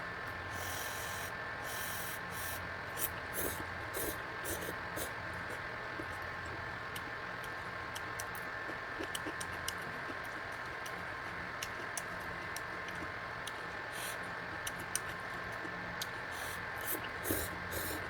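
Electric fan running steadily with a faint hum, under intermittent eating sounds of cup noodles: a couple of short slurps in the first few seconds, then scattered small chewing and utensil clicks, clustered at the start and near the end.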